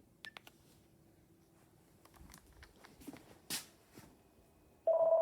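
Faint taps and clicks, then about five seconds in the home landline phone starts ringing loudly with an electronic ring tone as an incoming call comes through on the Ooma line.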